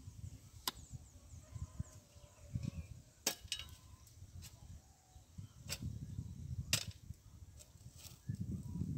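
Metal digging tools striking stony earth: several sharp knocks spaced a second or two apart, the loudest a little before the end, with low scraping and rumbling between them.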